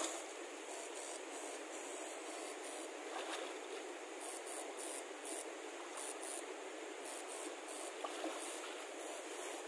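Shallow stream water hissing and splashing steadily as a man wades through it, with no clear single knocks or tones.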